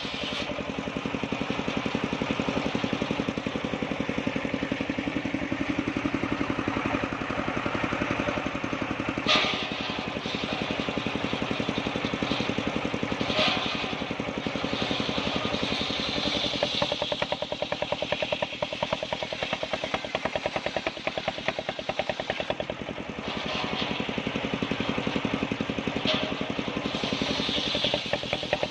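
Homemade engine-driven circular saw bench running steadily while ripping planks of waru (sea hibiscus) wood. The blade's cutting whine swells and fades as boards are fed through, with a few short knocks.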